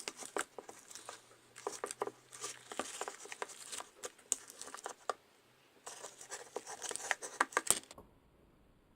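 A thick, foamy glue mixture for slime being stirred, giving irregular sticky crackles and squelches in several bouts with short pauses. It stops abruptly near the end.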